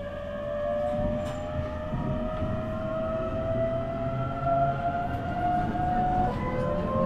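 Toyo Denki GTO-VVVF inverter and MT71 traction motors of a JR East E127 series electric train accelerating: a whine of several tones rising in pitch and getting louder, which drops about six seconds in and starts climbing again as the inverter changes its switching mode, over wheel and rail rumble.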